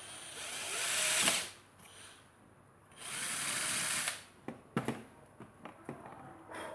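Small power drill running in two short bursts of about a second each, followed by several light clicks and knocks of handling.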